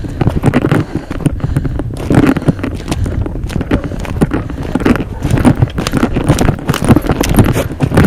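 A person running through brush and woodland debris: quick, irregular footfalls with branches and litter crunching and rustling, plus handling knocks and rumble from the jostled handheld camera.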